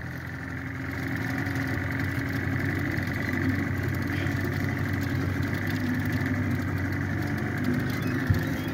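An engine running steadily at low speed, a little louder after the first second, with one short knock near the end.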